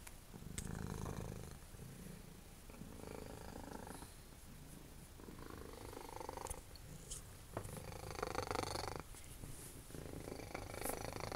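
Domestic cat purring, the purr swelling and easing with each breath about every two to three seconds.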